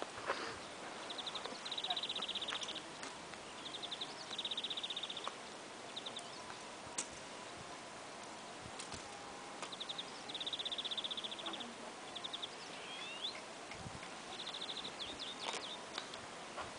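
Grasshopper stridulating: a high, rapid chirring in bursts of about half a second to a second, repeated every couple of seconds.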